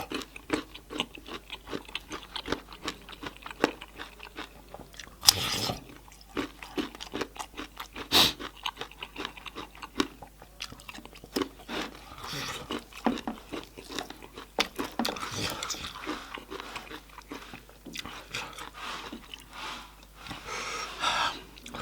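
Close-up chewing and smacking of a person eating goat meat curry and dhido, full of small wet mouth clicks, with two louder sharp smacks about a third of the way in. Breathy hissing comes in now and then between bites: the mouth is burning from a hot chili.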